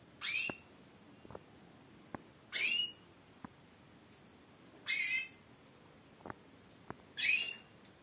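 Female Spanish Timbrado canary calling four times, about every two and a half seconds; each call is a short note sliding down from high to lower pitch. Faint light ticks come between the calls.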